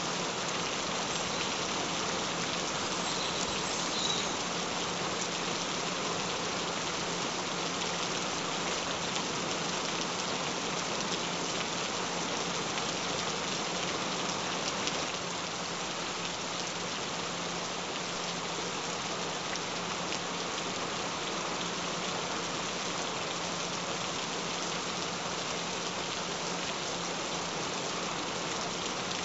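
Steady rain falling on surfaces, an even continuous patter, with a faint steady low tone underneath.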